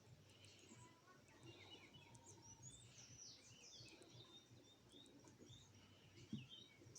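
Faint birdsong in the open: many short chirps and quick rising and falling calls from several birds, with one soft thump about six seconds in.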